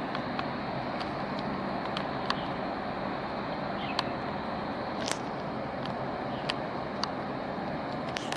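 Steady outdoor background rumble and hiss, with scattered sharp clicks at irregular intervals.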